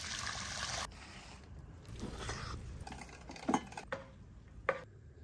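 Water pouring and splashing out of a pot of blanched grape leaves for about a second, then metal cookware clinking and scraping, with two sharp clinks of a pot and spoon near the end.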